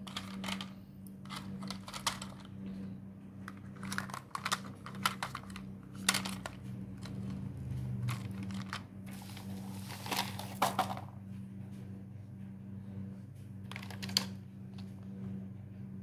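Plastic toy vehicles clicking and clattering as they are handled and set against each other in a wicker basket, with irregular knocks throughout. A steady low hum runs underneath.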